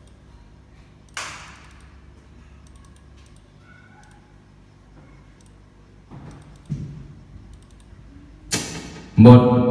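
Quiet room with a few short hissy bursts and small knocks, then near the end a loud voice call into a karaoke microphone booms out of the speakers with echo during a sound check.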